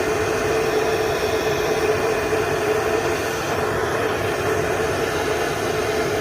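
Steady, loud machine noise: an even hiss with a steady hum under it, which cuts off abruptly near the end.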